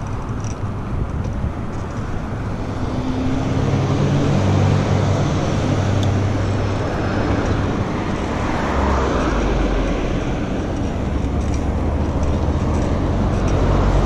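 Road traffic: cars driving past close by on a multi-lane street, a steady mix of tyre and engine noise, with one car going by louder about halfway through.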